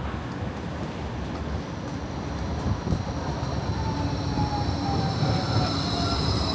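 Light-rail tram approaching, with a low rumble that grows louder. About two-thirds of the way in, a motor whine sets in and a tone falls in pitch.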